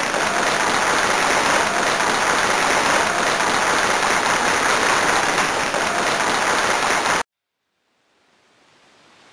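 Applause from a crowd, a dense steady clapping that cuts off abruptly about seven seconds in. After a short silence, a faint rising sound fades in near the end.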